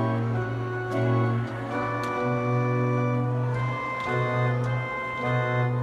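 Erben pipe organ playing sustained chords over a low bass line, the chords changing every second or so.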